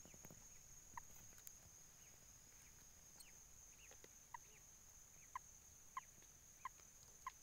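Near silence, broken by faint, short pitched calls: one about a second in, then five more at irregular spacing in the second half. A steady high-pitched drone runs under them.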